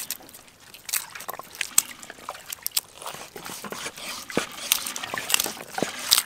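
Garlic being peeled by hand: irregular crackling and rustling of the papery skins, with light taps as cloves are set down on a wooden chopping board.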